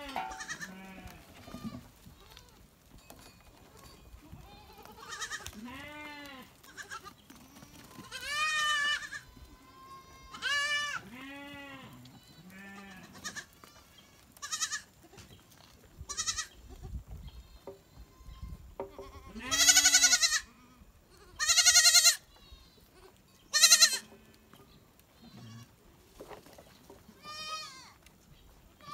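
Goats and sheep bleating, one call after another with short gaps between them; three loud, high bleats come close together about two-thirds of the way through.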